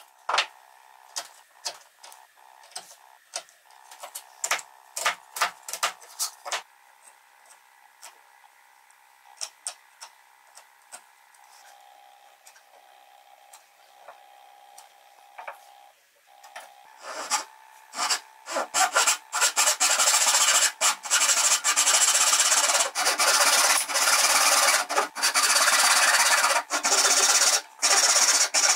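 Handsaw cutting into a block of softwood in quick, even back-and-forth strokes, starting about two-thirds of the way in and the loudest sound here. Before it come scattered light taps and clicks of hand tools on wood, then a quieter stretch.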